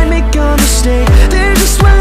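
Pop music with an electronic beat: deep bass-drum hits that drop in pitch, bright cymbal strikes and a melody over them.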